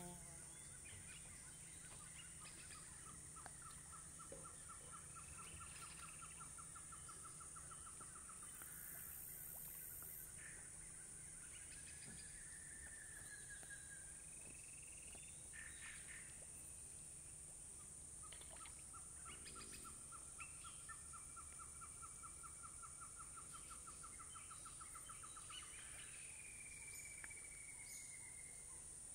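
Faint Amazon rainforest dawn chorus: a steady high-pitched drone of cicadas and other insects, with birds calling over it. A long, rapid pulsed trill comes twice, and short falling calls come in between and near the end.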